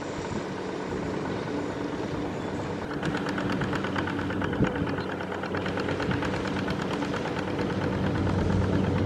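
Single-cylinder diesel engine of a two-wheel walking tractor running steadily as it drags iron cage wheels and a harrow through paddy mud. About three seconds in, a rapid, even clatter comes forward over the engine note.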